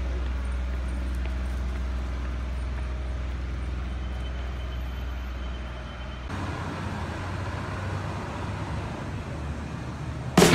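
City road traffic: a steady low rumble of vehicles that changes abruptly about six seconds in to a wider, even street noise.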